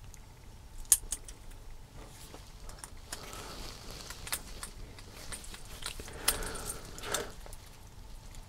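A Phillips screwdriver driving small screws into a plastic RC servo mount: scattered light clicks and scraping of metal on plastic, with a sharper click about a second in.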